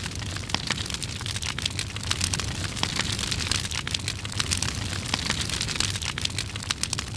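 Fire crackling: dense, irregular crackles over a steady low rumble.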